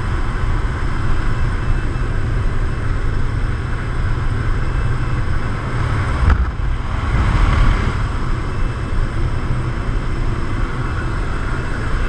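Wind rushing through the open door of a small propeller jump plane, mixed with the engine's drone and buffeting the microphone. About six seconds in the noise dips briefly, then swells as a skydiver moves into the doorway.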